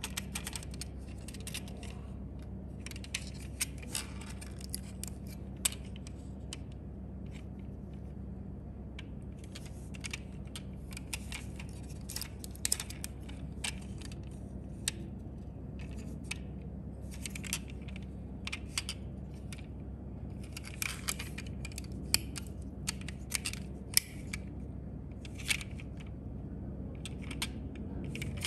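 Fingers handling a Welly diecast metal model of a 2015 Ford F-150 Regular Cab pickup: irregular small clicks, taps and scrapes as it is turned over and its opening door is worked.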